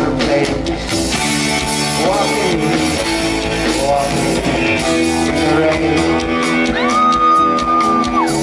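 Live band music: bass guitar and drums under sustained chords, with a voice sliding up and down in pitch. Near the end a long high note is held, then drops away.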